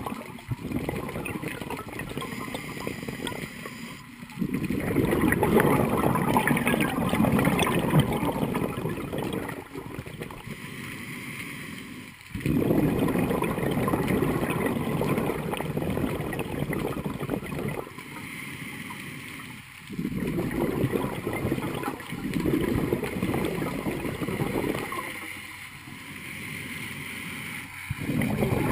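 Scuba diver breathing through a regulator: long gurgling rushes of exhaled bubbles alternate with short quieter inhales, about one breath every seven to eight seconds.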